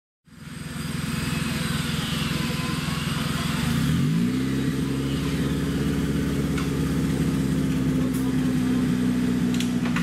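An off-road competition 4x4's engine running after a moment's silence, its revs rising about four seconds in and then held high and steady.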